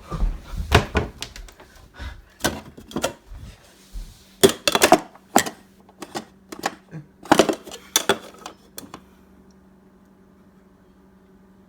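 Kitchen clatter: a run of irregular sharp knocks and clinks, like cups and dishes being handled and set down, for about nine seconds, then it stops and only a faint low steady hum remains.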